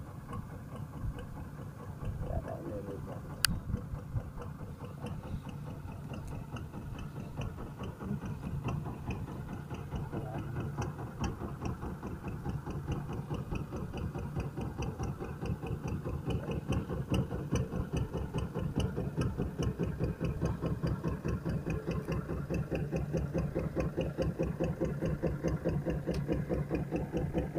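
A small boat engine running with a rapid, even putter. It grows louder over the first half, then holds steady. One sharp click comes about three and a half seconds in.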